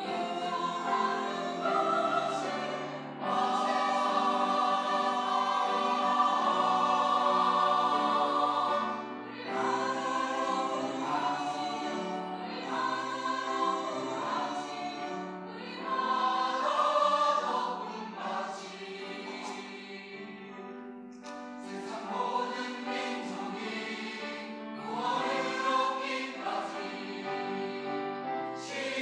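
Church choir singing a sacred anthem in several voice parts, in sustained phrases with brief breaks between them.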